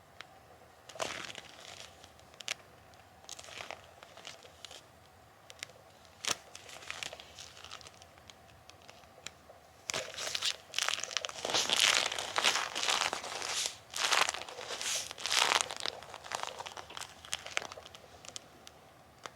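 Bilpearl rubber gloves rubbed hard against each other, sticking and peeling apart with a crinkling rubber sound. The strokes are sparse at first, then turn louder and busier for several seconds past the middle before thinning out again.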